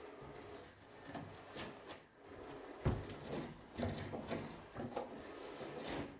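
Mineral wool insulation being pushed and tucked by hand between timber floor joists: irregular rustling and handling, with scattered knocks against the wood, the sharpest about three seconds in.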